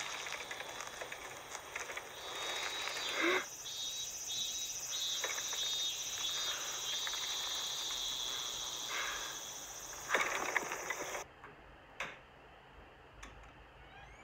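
Summer cicadas droning in a steady high chorus, with a couple of louder short noises about three and ten seconds in. The drone cuts off suddenly about eleven seconds in, leaving quiet room tone with a few faint clicks.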